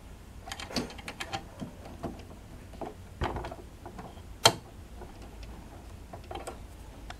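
Small, irregular clicks and taps of metal parts as a Jaguar portable sewing machine's needle plate and needle clamp area are handled and tightened by hand, with one sharp click about four and a half seconds in.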